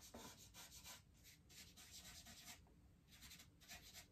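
Faint strokes of charcoal rubbed and drawn across drawing paper, quick short passes in runs with brief pauses, as the shading of the drawing is worked and blended.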